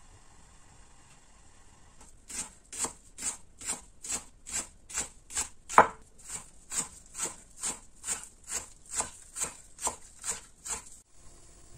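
Kitchen knife chopping green onions on a wooden cutting board. The strokes come at a steady pace of a little over two a second, starting about two seconds in, with one louder stroke near the middle.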